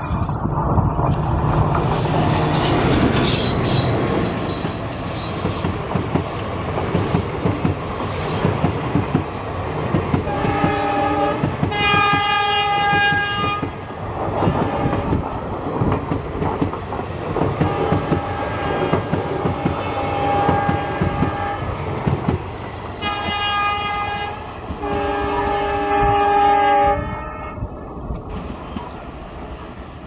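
WDG-3A ALCO diesel locomotive passing close with its engine chugging, then its coaches clattering over rail joints. The locomotive's horn sounds about five times from about ten seconds in, in several pitches. The sound fades near the end as the train draws away.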